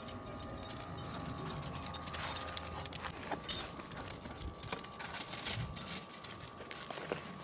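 Irregular footsteps and clicks with a light jingle of a dog's collar tags.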